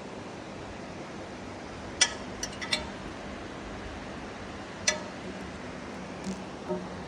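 Steady hiss of heavy rain in a thunderstorm, with a few sharp, briefly ringing clicks, the loudest about two seconds in and again near five seconds.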